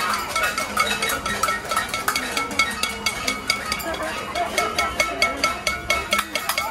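Many people banging pots and pans in a noise protest: a rapid, irregular clatter of metal strikes with ringing tones, over crowd voices.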